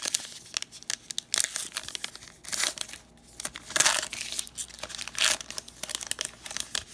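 The wrapper of a 2018 Topps Archives baseball card pack being torn open and crinkled by hand, in irregular rustles and crackles, the loudest about four seconds in.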